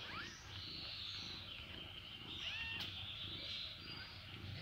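Newborn kittens mewing: a few thin, high mews that rise in pitch, just after the start and again about halfway through, over a steady high hiss, with one sharp click in the middle.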